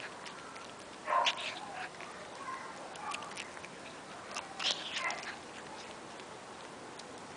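A hungry cat eating dry kibble, with two short, louder animal sounds about a second in and near the middle.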